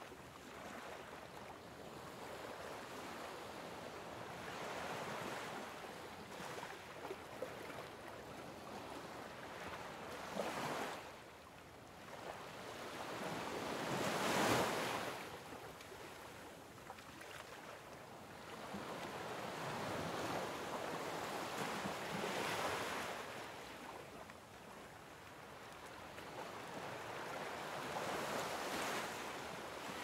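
Sea waves washing and breaking, a hiss that swells and fades every few seconds, with the biggest surge about halfway through.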